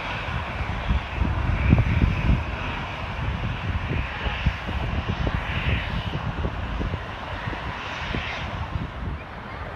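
Embraer 175 regional jet's twin General Electric CF34 turbofans on final approach and landing, a steady jet noise with a gusty low rumble that eases slightly near the end.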